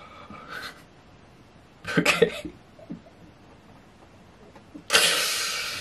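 A man's stifled laughter: a short cluster of laughs about two seconds in, then a long breathy exhale near the end.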